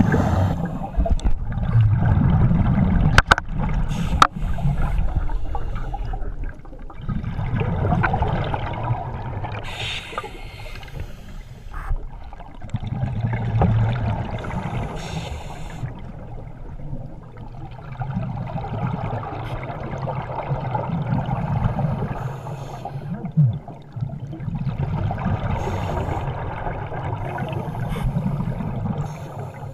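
Underwater scuba diving sounds: a diver's regulator breathing and exhaled bubbles gurgling, swelling and fading every five or six seconds, with a few sharp clicks in the first few seconds.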